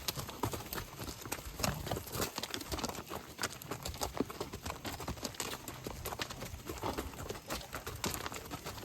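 Hooves of several horses clopping as they walk in together, in many irregular, overlapping steps.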